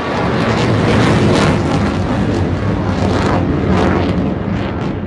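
Sukhoi Su-30MKV fighter's twin turbofans: loud, ragged jet noise with many short crackles through it as the jet flies its display.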